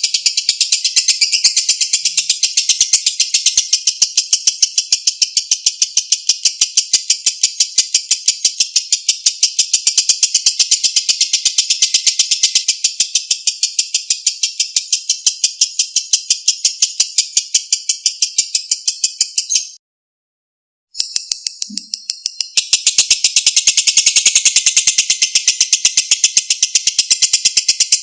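Lovebird's long 'ngekek' song: a high-pitched, rapid, evenly pulsed chattering trill that runs on without pause, breaks off for about a second around twenty seconds in, then resumes.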